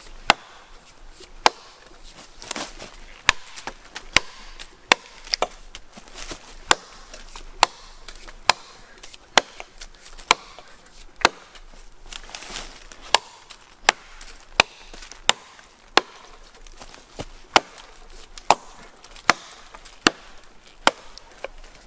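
Gränsfors Bruks Small Forest Axe chopping into a felled log about 3½ inches across: sharp blow after blow, about one a second, as the log is cut through into lengths.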